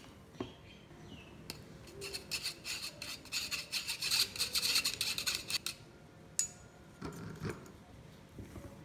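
A metal spoon scraping cocoa powder through a fine wire-mesh sieve: a quick, scratchy rasping for about four seconds, loudest in the middle, then a single sharp tap as it stops.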